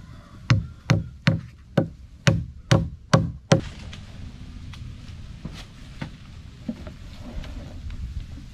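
Hammer driving nails through a flattened plastic barrel sheet into wood: eight sharp blows, about two a second, that stop a little under halfway through.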